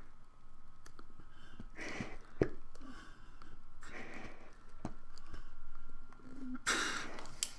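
Bag-valve-mask squeezed into a pocket mask held over the face: three rushes of air through the valve and mask, a couple of seconds apart, the last one the loudest.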